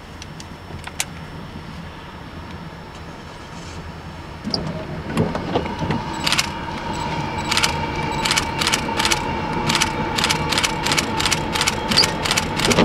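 CSX freight train with diesel locomotives approaching and passing, heard from inside a parked car. A low rumble swells about halfway through, then a steady tone joins it along with a fast, regular clicking of wheels, about three clicks a second.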